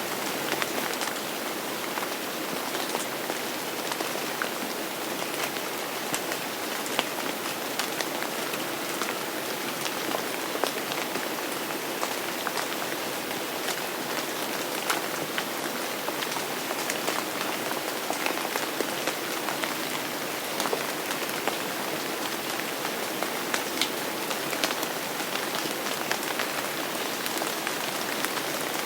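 Steady rain falling, a dense even hiss with many sharp individual drop hits scattered through it.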